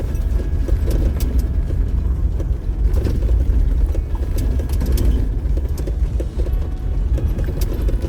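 Diesel 4x4 driving slowly over a rough dirt trail: a steady low rumble with scattered clunks and rattles from the vehicle jolting over the ground.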